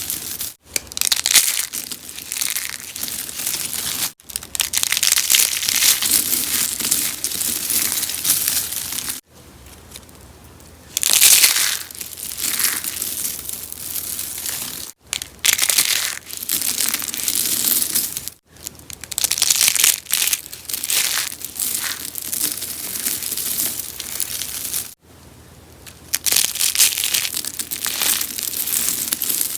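Rose soap being crushed, a dense crackling crunch that goes on in runs of a few seconds, each cut off abruptly, with two brief quieter moments.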